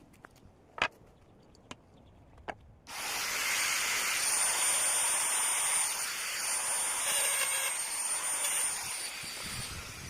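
A few light clicks, then a loud, steady hiss of rushing air with a thin high whistle, starting abruptly about three seconds in and tapering off near the end.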